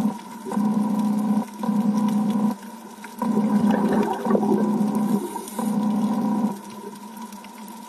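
Underwater bubbling and gurgling in bursts about a second long with short breaks between them, quieter near the end: typical of a diver's exhaled breath bubbling out of a scuba regulator.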